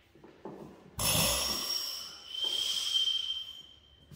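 Old hit-and-miss engine being rolled over by hand on its flywheel: a sudden sharp pop about a second in, then a whooshing puff with a high ringing tone that holds for about a second and a half.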